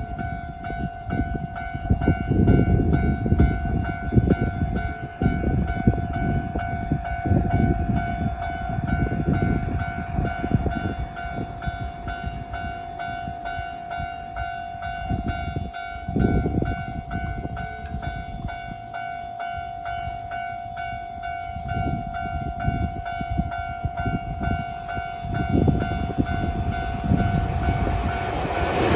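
Level-crossing warning bell ringing without pause, one steady pitched tone with overtones, signalling an approaching train. Under it runs an uneven low rumble, and right at the end a loud rush of train noise swells up.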